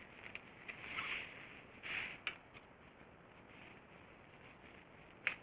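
Faint handling noises from a plastic car headlight housing being gripped and turned on a plastic sheet: a few soft rustles early, a light click a little after two seconds, and a sharper click near the end.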